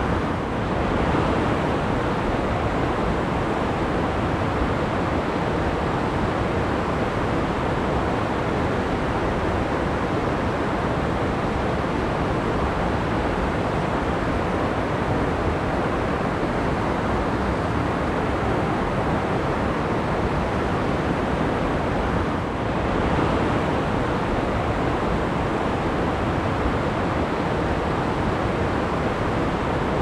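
Steady rush of water from a small waterfall and shallow stream flowing over pebbles. It briefly dips and swells twice, about half a second in and again past twenty-two seconds.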